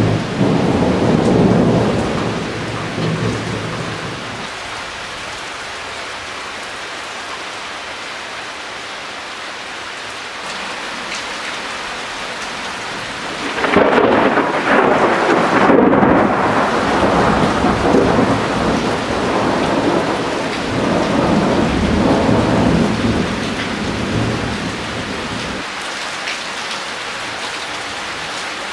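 Thunder rolling and dying away over steady rain. About fourteen seconds in, a sudden loud peal of thunder breaks and rumbles on for about ten seconds before fading back into the rain.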